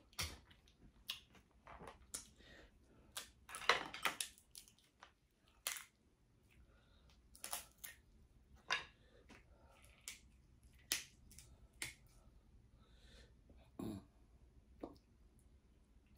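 Close-miked eating of snow crab and pasta: irregular sharp clicks and cracks, loudest about four seconds in, with chewing between them.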